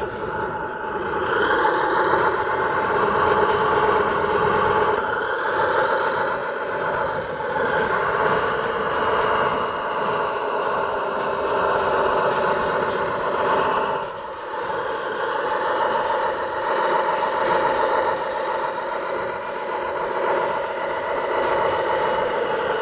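Small electric motors of an RC scale Jeep Wrangler crawler whining steadily as its winch reels in the line and drags the truck up through sand, the pitch wavering with the load. The sound dips briefly about two-thirds of the way through.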